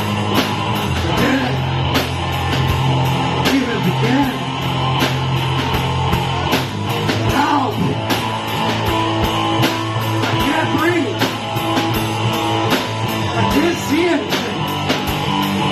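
Live two-piece rock band playing a song: electric guitar and drum kit keeping a steady beat, with a man singing over them.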